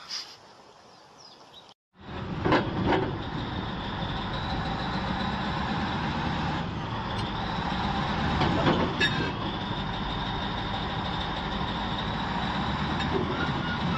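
Large Caterpillar crawler bulldozer's diesel engine running steadily under load as it climbs onto a low-loader trailer. It starts suddenly about two seconds in, with a few short knocks, two near the start and one in the middle.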